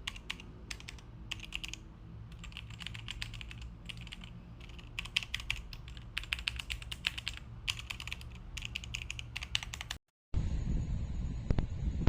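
Typing on a Royal Kludge RK918 full-size mechanical keyboard: rapid runs of key clicks in bursts with short pauses. The typing cuts off about ten seconds in, and a steady low rumbling noise follows.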